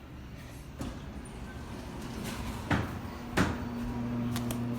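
ThyssenKrupp hydraulic elevator: the doors sliding shut with a few knocks, then a clunk about three and a half seconds in as a steady low hum starts, the hydraulic pump motor running to move the car.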